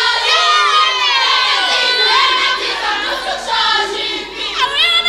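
A crowd of young voices shouting and cheering at once, high and overlapping, with pitches sliding up and down.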